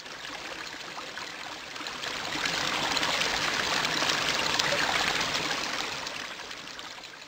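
Running, trickling water: a steady rush with fine crackle that swells to its loudest in the middle and fades away near the end.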